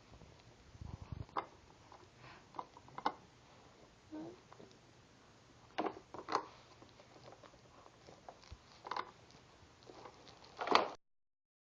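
A small pet playing with toys: irregular light clicks, taps and rustles, with a louder clatter near the end before the sound cuts off suddenly.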